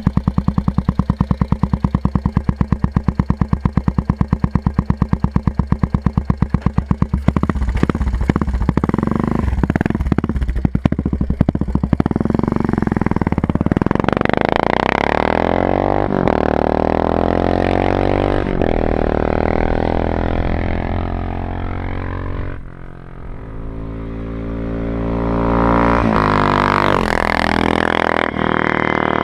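Suzuki Savage LS650 single-cylinder engine with a Harley-Davidson carburetor and Raask exhaust. It idles with a rapid, even thump, is blipped several times, then accelerates away with its note rising in pitch again and again as it fades. Near the end it grows loud again as the bike comes back past.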